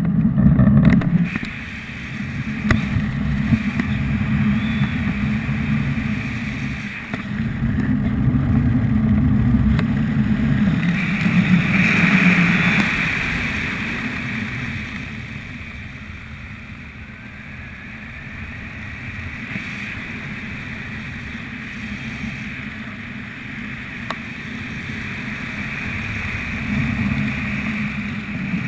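Wind rushing and buffeting over a helmet camera's microphone during a parachute descent under an open canopy, a low rumble that eases off in the middle and builds again near the end.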